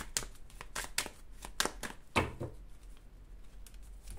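Fortune-telling cards being shuffled and handled by hand: a quick run of soft card clicks and flicks, thinning out in the second half, with one louder tap a little after two seconds in.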